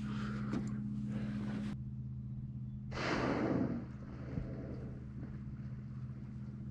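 A steady low hum runs throughout. About three seconds in, a person lets out a loud breath, like a sigh, close to the microphone, lasting under a second.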